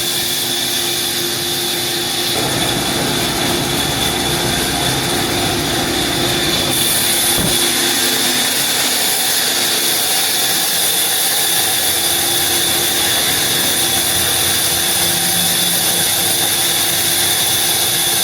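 Sawmill wood-cutting machinery running steadily, with a constant high whine over a mechanical drone and a short knock about seven seconds in.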